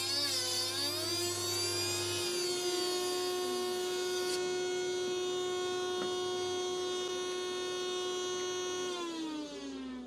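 Trim router spinning in a router table while a pine 2x4 is fed along the fence past the bit; its pitch wavers and dips under load in the first second, with a cutting hiss that stops about four seconds in. The motor then runs steadily and winds down near the end, its pitch falling as it is switched off.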